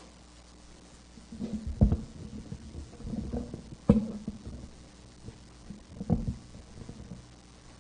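A few dull thumps and knocks in a quiet room, irregularly spaced, the loudest about two seconds in, about four seconds in and about six seconds in, with softer knocks between.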